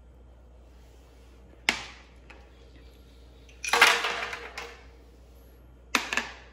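Kitchen handling noises from small bowls and ingredients going into a plastic blender jar: a sharp knock about a second and a half in, a longer clatter just before four seconds that is the loudest, and a quick double knock near the end.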